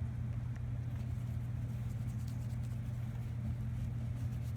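A steady low mechanical hum, with a few faint light ticks over it.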